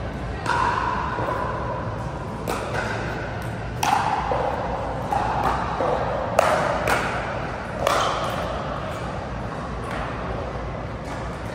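Pickleball rally: a string of sharp hollow pocks as paddles strike the plastic ball, roughly one every second, quickening to several in quick succession in the middle, each ringing on in the big hall's echo. The loudest hit comes about six and a half seconds in.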